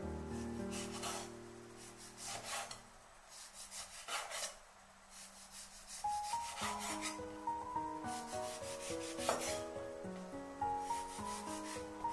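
Chinese cleaver slicing through raw pork onto a wooden cutting board, one cut every second or two, each ending in a light knock of blade on wood. Soft background music plays throughout.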